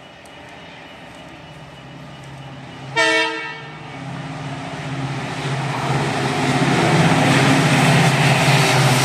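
A WDP-4D diesel locomotive gives one short horn blast about three seconds in. Its engine and the running train then grow steadily louder.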